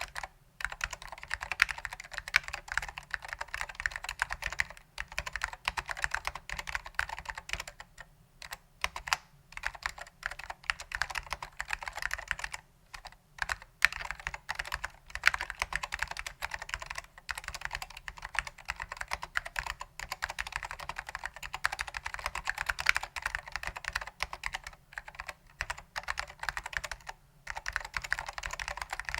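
Steady fast typing on a vintage Apple Standard Keyboard M0116J with Alps SKCM Orange switches lubed with dry lube, a dense run of key clicks broken by a few short pauses.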